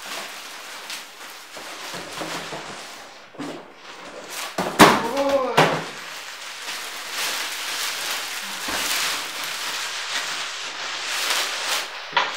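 Crinkling and rustling of clear plastic wrapping and cardboard box flaps as a portable toilet is pulled out of its packaging. A brief vocal sound comes about five seconds in.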